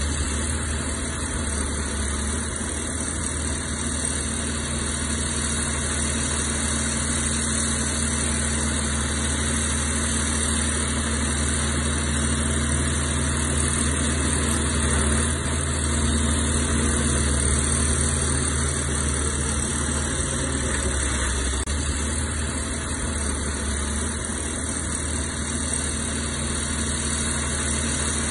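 Heavy earthmoving machine's diesel engine running steadily, a little louder for a few seconds around the middle.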